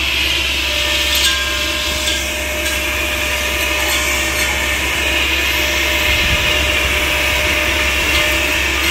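Tree-trimming machine with a long boom saw running: a steady mechanical drone with a high, hissing whine that holds without a break.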